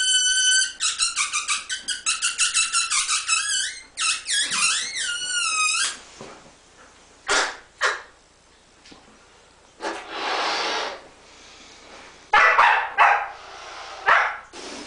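Siberian husky giving quick, high-pitched, pitch-bending yelps and whines for the first six seconds, then a few short barks spaced through the rest.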